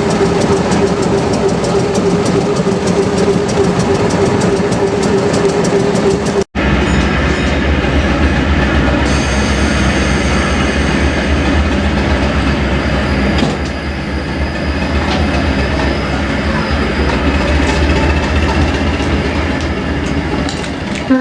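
Class 207 diesel-electric multiple unit running on rail, its diesel engine working with wheels clicking over the rail joints. A steady whine runs until a sudden break about six seconds in, after which a deep low engine rumble takes over.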